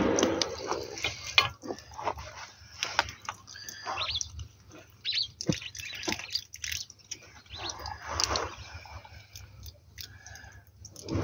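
Scattered clicks, knocks and rustles of hands working a garden tap and its plastic pipe fitting, with a few short high squeaks.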